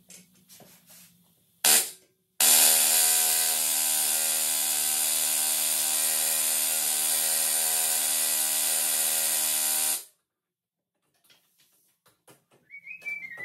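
Pneumatic air tool hammering on the rear wheel hub: a short burst, then a steady run of about seven and a half seconds that cuts off abruptly, as the bad rear wheel bearing is being taken off.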